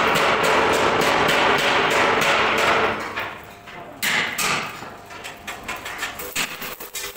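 Rapid metal-on-metal hammering and clanging on a sheet-steel concrete mixer drum, loud and dense for about three seconds. A second burst comes about four seconds in, followed by scattered knocks.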